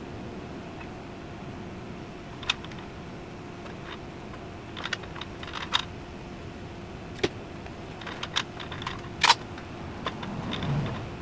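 Scattered light clicks and taps, about a dozen, over a steady hum. The sharpest clack comes about nine seconds in, and a short low rumble follows near the end.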